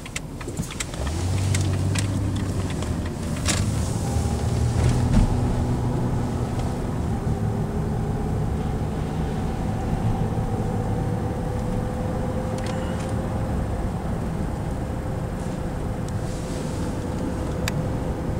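Car engine and tyre noise heard from inside the cabin while driving, a steady low rumble that grows louder about a second in. A few sharp clicks early on.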